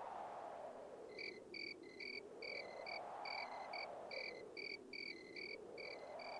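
Faint night ambience of crickets chirping, about three short chirps a second, starting about a second in. Under them a soft whooshing swells and fades about every three seconds.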